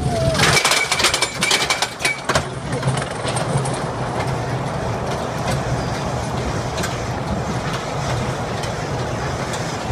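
Amusement ride running, heard from the rider's seat: a burst of rattling and clicking with a brief high tone in the first two seconds or so, then a steady rushing noise.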